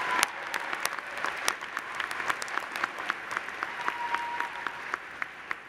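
A large audience applauding, many hands clapping at once, thinning out and fading near the end.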